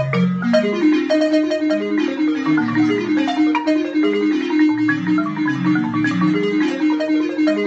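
Balafon, a wooden West African xylophone with gourd resonators, played fast with two mallets: a quick run of struck notes over a middle note that keeps recurring, with lower bass notes underneath.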